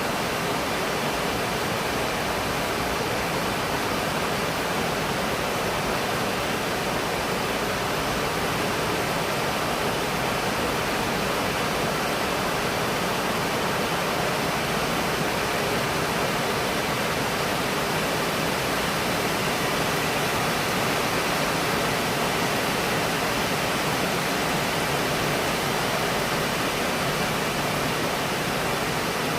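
Rain falling steadily, a dense even hiss that holds the same level throughout, with no single drops standing out.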